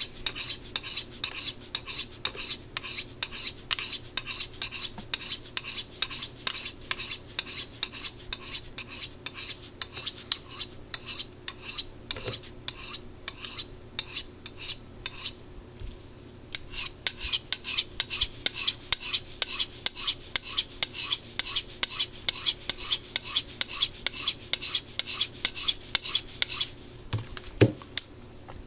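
A 440 stainless steel knife blade stroked freehand along a medium-grit ceramic sharpening rod: a fast, even run of short rasping swipes, about three a second, with a brief pause about halfway through, stopping shortly before the end.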